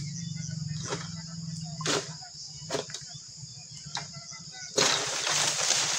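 Oil palm harvesting sickle (egrek) on a long pole cutting at a fruit bunch's stalk high in the crown, with sharp strokes about once a second. Near the end a sudden loud rustling rush follows as the cut bunch tears loose and drops through the fronds. Under it all, a steady high drone of insects.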